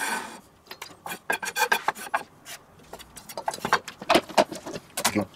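Chef's knife blade and a plastic scraper scraping chopped mushroom across a wooden cutting board and into a stainless steel bowl: an irregular run of short scrapes and taps.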